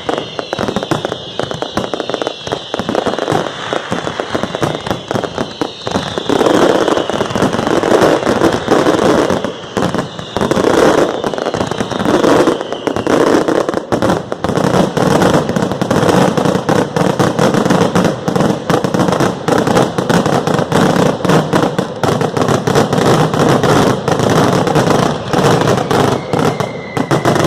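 Fireworks display going off without pause: dense, rapid bangs and crackling, with a high whistle slowly falling in pitch through the first half.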